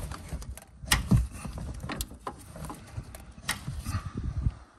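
Ratchet wrench clicking in short, uneven strokes, a click or two at a time, as the upper starter bolt is tightened in a cramped spot, with metal knocks of the tool against the surrounding parts; the loudest knock comes about a second in.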